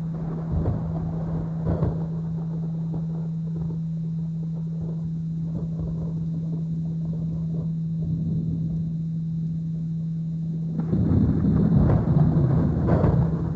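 A steady 165 Hz binaural-beat tone hums over recorded rain and distant rumbling thunder. About eleven seconds in, a louder roll of thunder swells up.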